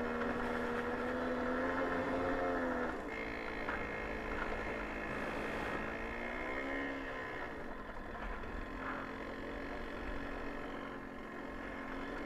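Babetta 210 moped's 50 cc single-cylinder two-stroke engine running while riding a rough dirt track, with a low rumble underneath. The engine note drops about three seconds in, rises and falls again briefly a little past halfway, then runs steadily at a lower pitch.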